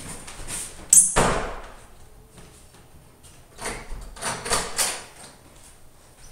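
A room door pulled shut with a bang about a second in. A few smaller latch and handle clicks and knocks follow about four seconds in as the door is opened again.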